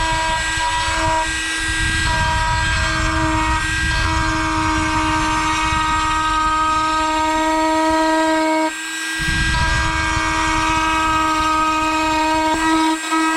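Dremel rotary tool running with a steady high-pitched whine, its bit grinding a channel into a fiberglass fender for wires. The grinding lets up briefly about nine seconds in while the motor keeps spinning.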